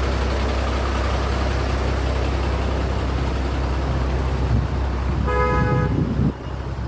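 Water released through a barrage's gates, rushing steadily and loudly. About five seconds in, a horn toots for under a second, and shortly after the rushing drops off suddenly.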